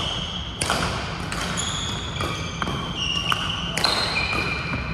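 Badminton play in a large sports hall: sharp racket hits on shuttlecocks and shoes squeaking on the court floor, one every half second or so, with the hall's echo over a steady low hum.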